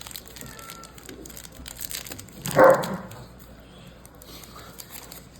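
A dog barks once, a short loud bark about two and a half seconds in, over faint clicks and rustling from cards being handled.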